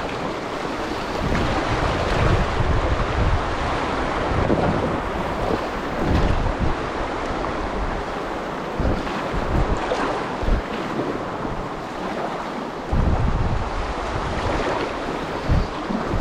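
Glacier-fed river water rushing and splashing through rapids in a steady wash, with wind buffeting the microphone in low gusts now and then.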